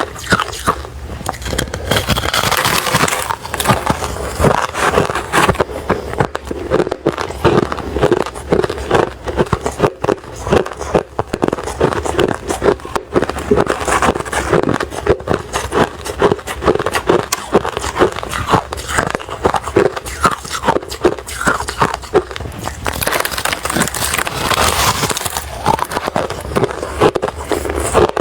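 Refrozen crushed ice being bitten and chewed close to the microphone: a dense, irregular run of sharp crunches and cracks.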